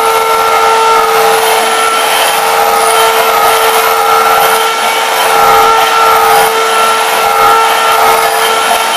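Hand-held electric mixer running steadily at a constant pitch, its twin beaters whipping egg whites in a glass bowl into stiff peaks.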